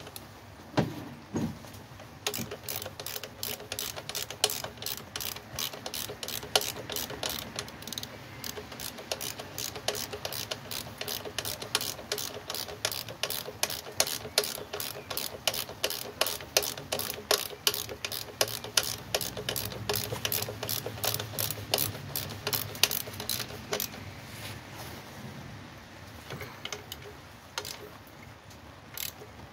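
Hand ratchet wrench clicking steadily, about three clicks a second, as a bolt is turned. The clicking thins out to a few scattered clicks near the end.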